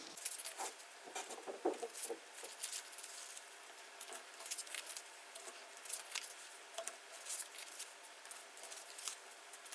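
A strip of paper being concertina-folded by hand: a string of irregular small crinkles, taps and creasing scrapes as it is folded, flipped and folded again.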